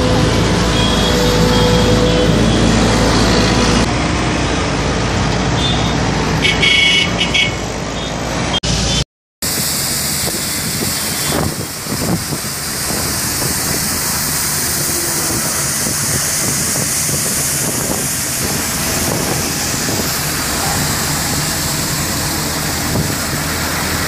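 Skid steer loader with a rotary sweeper attachment running, its engine droning steadily close by. The sound cuts out briefly about nine seconds in and returns as a steadier hiss of engine and sweeping.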